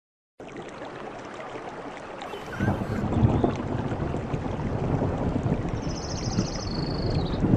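Rushing, splashing water, louder from about two and a half seconds in, with a brief high trill near the end.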